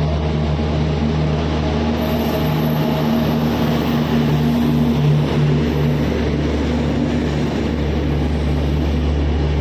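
A train running with a steady low hum and rumble.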